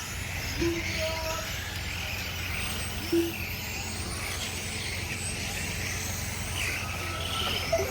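Electric RC touring cars racing around the track. Faint motor whines rise and fall in pitch over a steady background hum.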